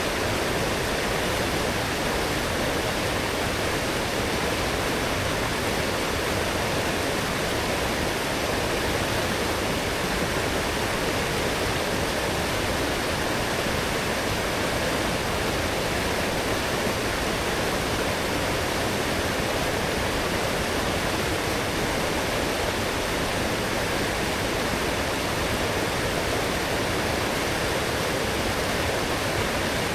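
Fast-flowing forest stream swollen after heavy rain, water rushing steadily over rocks in an unbroken loud wash.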